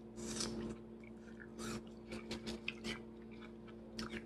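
Close-up chewing of a mouthful of salad, a string of short wet crunches and mouth sounds, several quick ones together about two to three seconds in.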